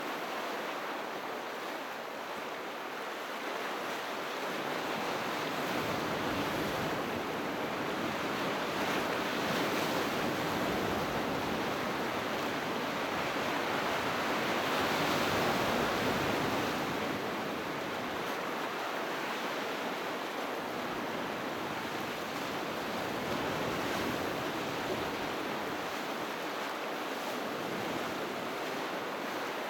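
Sea waves breaking and washing onto the shore in a continuous rushing surf that swells to its loudest about halfway through, then eases.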